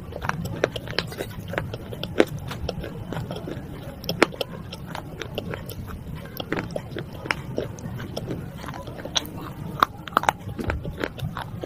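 Crunching and cracking of broken baked-clay pot shards being bitten and chewed: a string of irregular sharp snaps, with louder cracks about two, four and ten seconds in.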